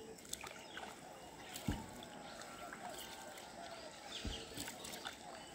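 Faint riverside ambience: scattered small bird chirps over light water sloshing, with two soft low thumps, about a second and a half in and again near four seconds.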